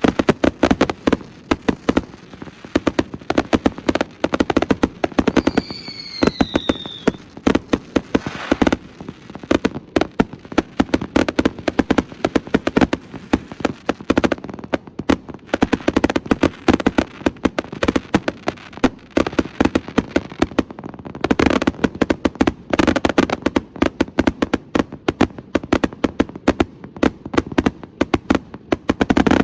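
Astroboy fireworks going off in a dense, unbroken run of rapid bangs and crackle. A single falling whistle sounds about six seconds in.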